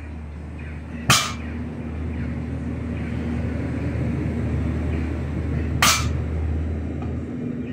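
Loaded barbell plates touching down on a rubber floor mat during deadlift reps: two sharp clacks about five seconds apart, over a steady low hum.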